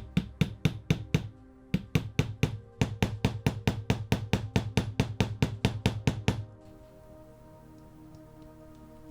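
Rapid light knocks, about four a second in three short runs, which stop about six and a half seconds in, over soft ambient background music.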